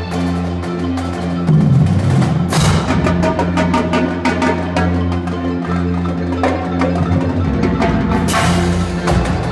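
High school indoor drumline and front ensemble playing: dense marching snare, tenor and bass drum strokes over held low notes from electric guitars and synth keyboard, with mallet keyboard parts. Two bright cymbal crashes ring out, about two and a half seconds in and near the end.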